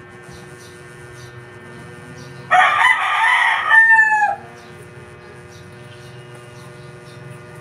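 A rooster crowing once, a call of about two seconds that ends on a falling note, over a steady electrical hum.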